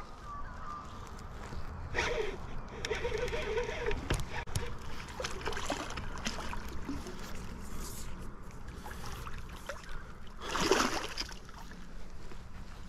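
A hooked Murray cod splashing at the water's surface as it is reeled in to the side of a boat, with one louder splash near the end.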